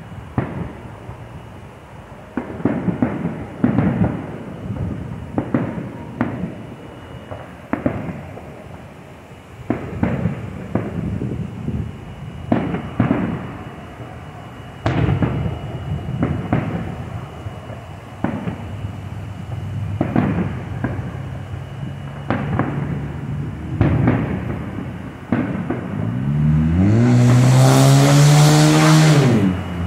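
Aerial fireworks shells bursting, an irregular run of sharp bangs, roughly one every second or two, each with a short echoing tail. Near the end a loud motor-like drone rises in pitch and holds for about three seconds, louder than the bangs.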